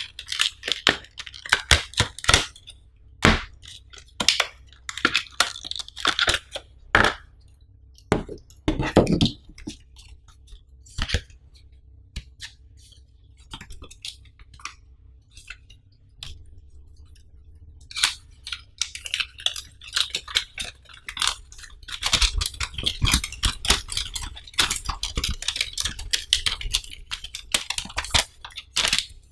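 Clear plastic packaging crinkling as it is opened and handled, then stiff paper inserts rustling as they are pulled out and a thin instruction leaflet being unfolded. The sound comes in irregular bursts of crackle, thins out midway and is densest near the end.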